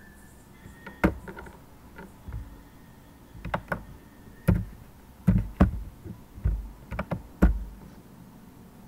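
About a dozen irregular sharp clicks and knocks, several with a dull thud beneath them, scattered from about a second in until shortly before the end. They fit keys, a mouse or hands knocking on a desk.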